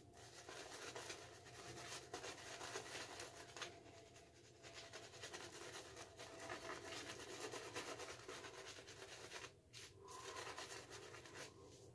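Shaving brush with a 26 mm Manchurian fan knot face-lathering soap: faint, rapid scratchy rubbing of the wet, lather-loaded bristles against the face, with brief pauses about four and a half and nine and a half seconds in.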